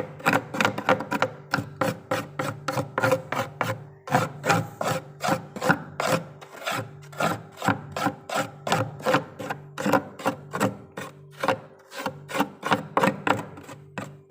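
A spoon scraping frost in quick repeated strokes, about three or four a second, each a short crisp rasp.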